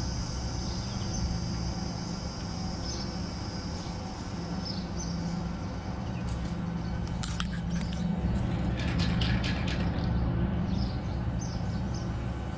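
A steady low machine hum, with small clicks and scrapes from a screwdriver working the screw terminals of an air conditioner's wiring block about halfway through and a few faint bird chirps early on.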